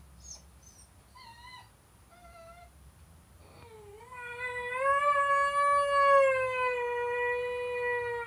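Basenji howling: a few short, wavering calls, then one long howl that starts low, rises a little and is held for about four seconds before cutting off.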